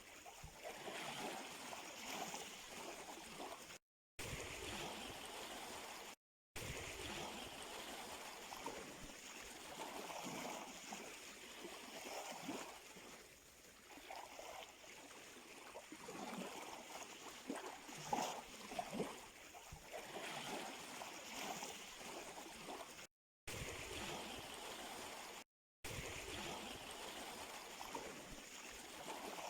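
Sea water lapping and gurgling at the shore in small splashing waves. The sound is quiet and cuts out completely four times for a split second.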